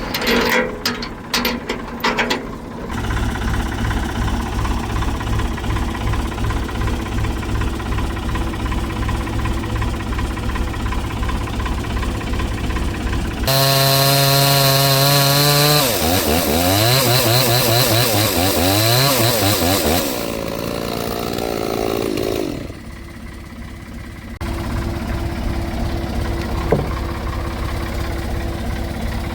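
Gas chainsaw on an Alaskan chainsaw mill running and cutting through a log, its engine pitch swinging up and down for several seconds near the middle. Sharp clicks come in the first few seconds.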